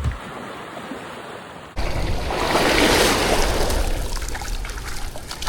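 Ocean surf on a beach: a wave swells and breaks, loudest about three seconds in, then washes back. It cuts in suddenly a little under two seconds in, after a quieter hiss.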